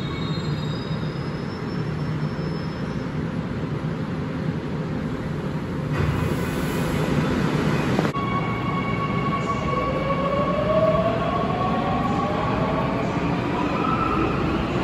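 Seoul Metro Line 9 electric train pulling out of the station over a steady rumble, its traction motors whining in a pitch that climbs steadily as it accelerates, from about ten seconds in. A two-second hiss comes about six seconds in.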